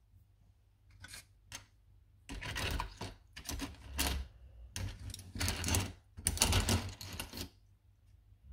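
Small metal spoon stirring and scraping coins in a foil-lined tray of liquid: clinking and rustling in a series of irregular bursts.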